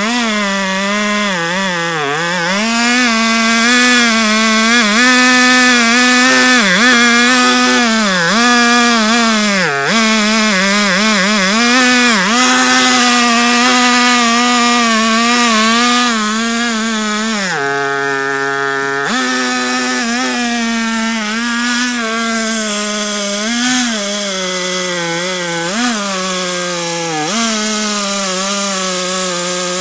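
Two-stroke petrol chainsaw in a chainsaw-mill frame running at high revs while ripping a log lengthwise into a plank. The engine note wavers as it loads up in the cut. About two-thirds of the way through, the note drops briefly to a lower, steadier pitch without the cutting noise, then picks back up.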